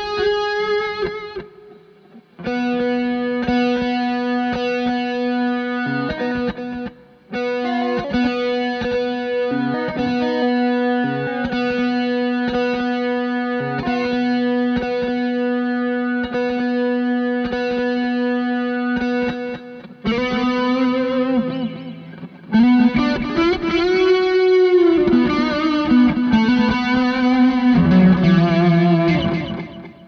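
Electric guitar with high-gain distortion played through a delay pedal, long held notes carried by the repeats. In the last third the pitch swoops up and down while the delay's time and repeat knobs are turned.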